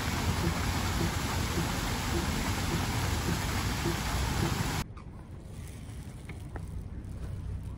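Paddlewheel pond aerator churning and spraying water: a steady loud rush of splashing with a faint regular beat about twice a second. It cuts off abruptly about five seconds in.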